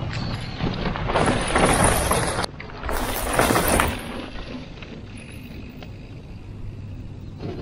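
Mountain bike passing close by on a dirt trail, its knobby tyres rolling over the dirt. The noise is loud twice, about a second in and again about three seconds in, then fades as the bike rides away.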